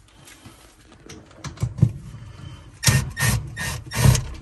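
Red Milwaukee cordless drill-driver running in several short bursts as it backs out the screws that hold the RV range in the counter. The loudest run comes between about three and four seconds in.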